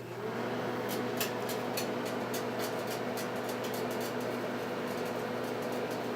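Microwave oven running: a steady electrical hum, with faint scattered clicks through roughly the first half.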